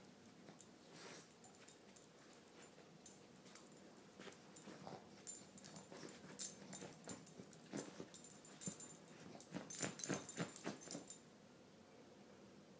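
Boston terrier pawing and scratching at a fabric cushion in irregular bursts, nesting to make its bed before lying down; the scratching stops near the end.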